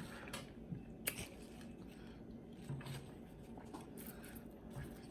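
Quiet chewing and biting of spicy jumbo shrimp close to the microphone, with a few soft crunches and clicks, the sharpest about a second in.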